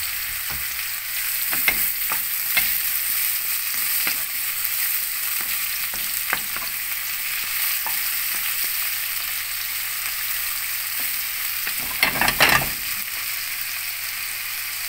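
Mushrooms, spring onion, garlic and lemongrass sizzling in hot olive oil in a pan, with scattered clicks and scrapes of a utensil stirring them. A louder burst of stirring noise comes about twelve seconds in.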